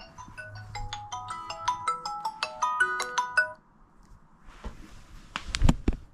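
Smartphone alarm tone playing a quick marimba-like melody of stepping notes, cut off about three and a half seconds in. A few sharp handling knocks follow, the loudest near the end.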